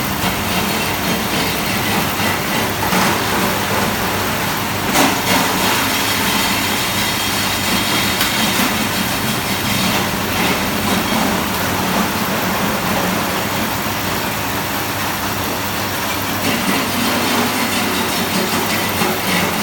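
Fish-bait cutting machine running steadily: a continuous mechanical clatter with a few sharper knocks.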